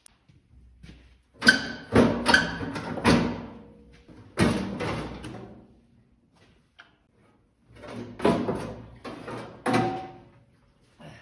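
Loud metal clanks and knocks with a ringing tail, in two bursts of several strikes each, as parts are worked loose and moved on an old Farmall tractor.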